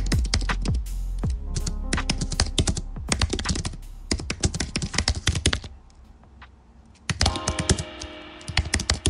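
Fast typing on a computer keyboard, in quick runs of keystrokes that thin out for about a second past the middle, over background music.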